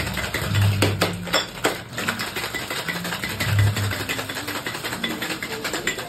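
Ice rattling rapidly against the walls of a metal cocktail shaker being shaken hard by hand, over background music.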